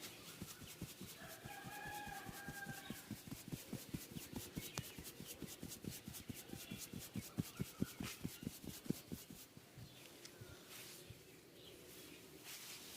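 Quick, even hand taps or slaps of a massage on the body, several a second, stopping a little over two-thirds of the way through. Chickens call in the background.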